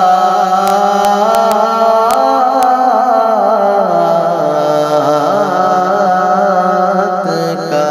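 A man singing a naat in long, wavering held notes over a steady drone, with no distinct words.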